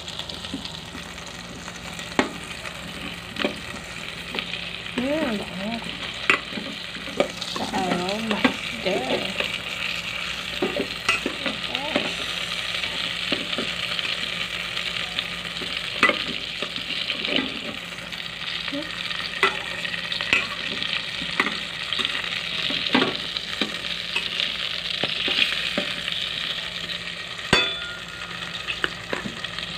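Sweet potato slices frying in butter in a rice cooker's inner pot: a steady sizzle, with a spoon clicking against the pot many times as they are stirred.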